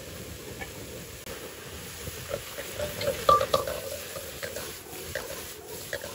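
Vegetables sizzling in a steel wok while a metal spatula scrapes and clanks against the pan as they are stir-fried and tossed. The loudest clanks come about halfway through.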